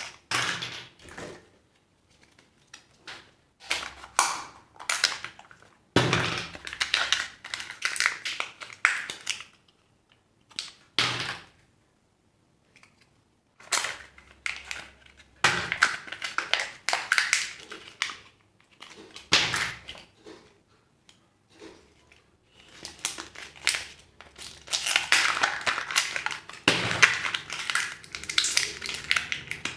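Hands opening surprise eggs: crinkling and tearing wrappers and clicking, snapping plastic, in bursts with short pauses between them.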